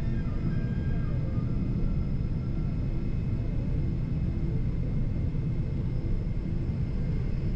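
Boeing 777-300 taxiing, heard inside the cabin: a steady low rumble with faint steady high tones above it.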